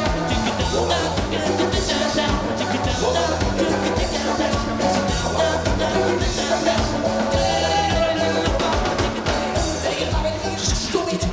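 Live reggae-ska band music with a steady bass line and drum beat, and a melodic lead line over it.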